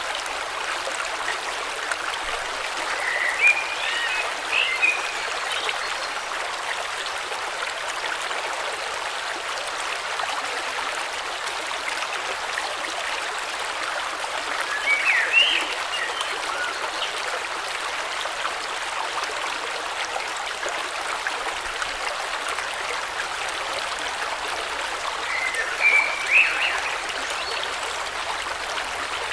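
A river flowing steadily with an even rush of water. Short bursts of bird chirps come through three times, well apart.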